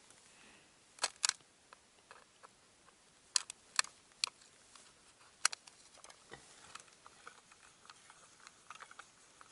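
Sharp clicks and light handling noises from a winter tip-up being set over an ice hole: about six distinct clicks in the first six seconds, then fainter scattered ticks.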